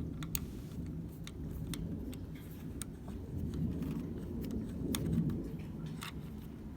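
Scattered light clicks and taps of hand tools and metal parts as a steering wheel and quick-release hub are handled, at irregular times, over a low steady hum.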